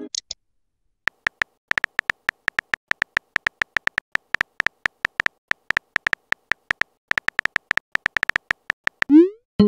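Phone keyboard typing sound effects: a long run of short, identical beep-like key clicks, several a second, one for each letter typed. Near the end comes a rising swoosh as the message is sent.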